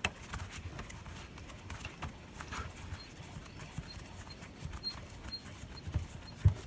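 Light, irregular clicks and knocks of a small vintage LES bench vise being worked by hand as its freshly tightened sliding jaw is tested for play, with a few faint squeaks in the second half.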